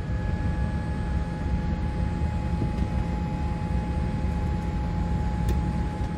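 Steady cabin hum inside a Boeing 787-8 airliner: a constant low rumble with a thin, steady high whine over it.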